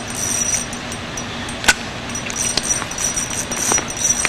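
Fishing reel being cranked, with a light metallic clicking and rattling and one sharp click a little before halfway, over a steady low hum.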